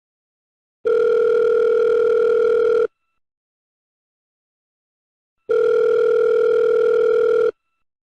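Telephone ringing: two steady, even-toned rings, each about two seconds long, with a pause of under three seconds between them.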